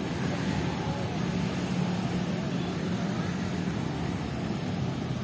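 Steady road traffic: a continuous low engine hum of passing vehicles under an even wash of noise.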